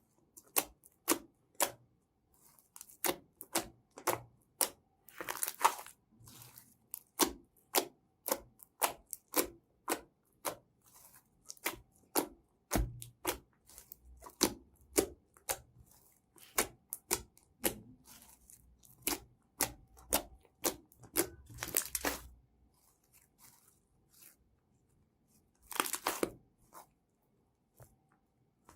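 Slime being worked by hand, giving an irregular run of sharp pops and clicks, about two a second, with a few longer, noisier crackles in between.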